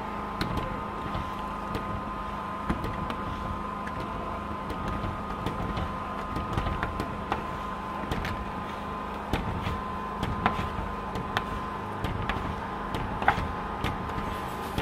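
Hard plastic squeegee being pushed in strokes over wet window film on glass, squeezing out the water, with scattered sharp clicks. A steady hum with a constant high tone runs underneath.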